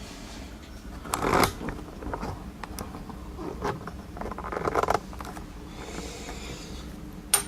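Hand handling of a padlock and lock-picking tools: scattered small clicks with two short scraping rustles, one about a second in and one near the five-second mark.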